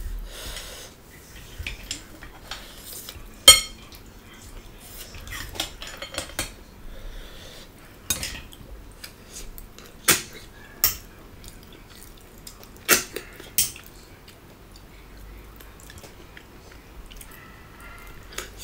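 A metal spoon and fork clinking against ceramic plates and bowls: scattered sharp clinks, the loudest ringing briefly about three and a half seconds in, with quiet eating sounds between.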